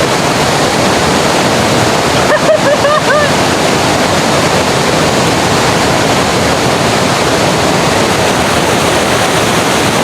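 Waterfall's steady, loud rush of falling water close by. A short pitched call rises briefly over it about two and a half seconds in.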